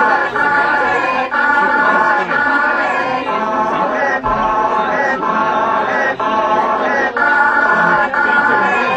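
Electronic music played live on a keyboard and laptop rig: a repeating pattern of chords that changes about once a second.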